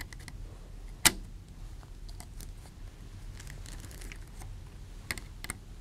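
Small metallic clicks and scrapes of a hand tool tightening the nut of a binding post onto a breadboard's metal base plate: one sharp click about a second in, then a few fainter clicks.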